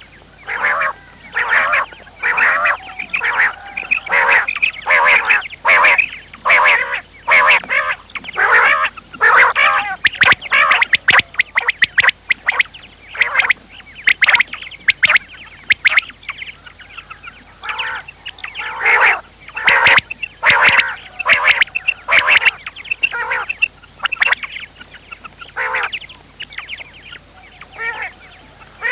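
Birds calling over and over: many short, loud calls in quick succession, with brief pauses between bouts.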